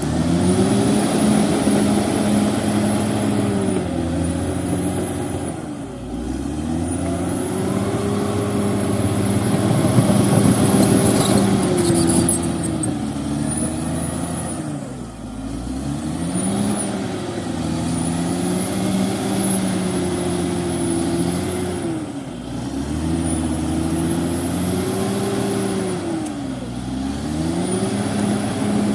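CAT D6R XL bulldozer's diesel engine running under load, its pitch dropping and climbing again every five to seven seconds as it works back and forth, with a faint high whine that rises and falls with it. A short burst of metallic clanking comes about eleven seconds in.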